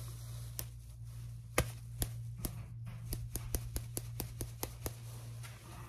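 Finger snaps close to the microphone, as in the hearing check of a cranial nerve exam: a few spaced snaps, then a quick run of about five a second lasting about two seconds.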